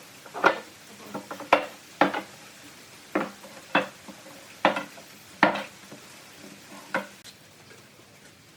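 Hand work on an old wooden workbench: about nine short knocks and scrapes at uneven intervals, stopping about seven seconds in.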